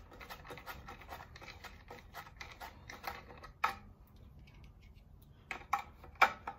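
Rapid small clicks and scratches of hands fitting a pilot light into a metal pushbutton control box, with a sharper click about three and a half seconds in and a few louder knocks near the end, the last the loudest.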